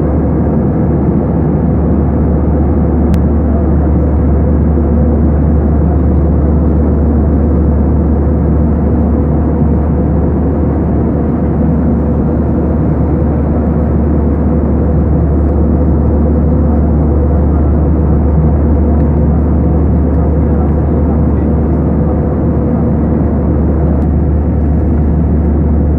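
Airliner's steady engine and airflow drone, a deep, even rumble with a faint hum running through it.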